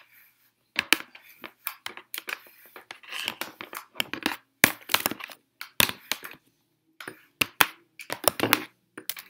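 Hair straightener being clamped and pulled through hair, with a comb brushing alongside: a run of irregular sharp clicks and clacks from the iron's plates and the tools being handled, with short rustles of hair between them.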